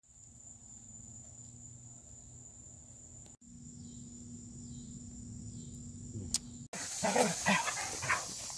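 Quiet outdoor background with a steady high-pitched insect drone, broken by two abrupt cuts. After the second cut, about two-thirds in, it gets louder: several dogs vocalizing as they play.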